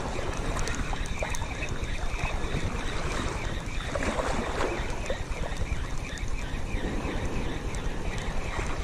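Wind buffeting the microphone as a steady, fluttering rumble, with faint water and rustling sounds over it.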